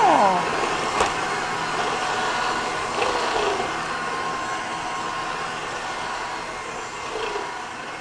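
Roomba robot vacuum running across a tile floor: a steady whir of its motor and brushes that slowly fades as it drives away. A brief chirp falling in pitch sounds right at the start.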